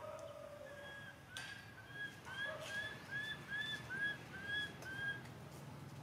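A bird calling: a run of about a dozen short, arched whistled notes, two to three a second, after a lower, longer note at the start.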